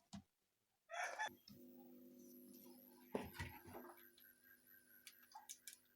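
Near silence with a few faint clicks and handling noises and a faint steady hum in the middle.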